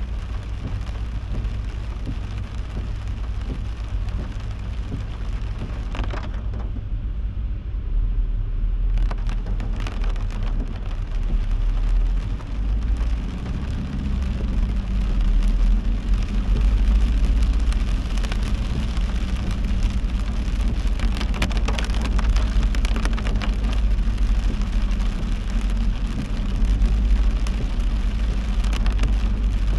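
Heavy rain falling on a moving car, with the car's low road and engine rumble underneath. The rain noise drops away for a few seconds about six seconds in, then returns and gets heavier, with the rumble growing louder from about halfway through.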